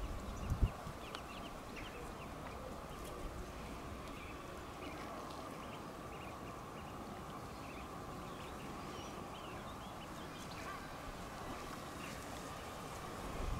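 Mallard ducklings peeping faintly in short, scattered high notes over a low steady rumble, with a brief thump just after the start.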